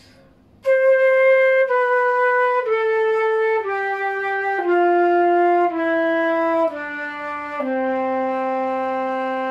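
Concert flute playing a slow descending C major scale, do-ti-la-so-fa-mi-re-do from C5 down to low C4, at about one clear note a second. The final low C is held for about two seconds. Each note is played with the airstream matched to the lengthening tube so that the low notes still sound clearly instead of going airy.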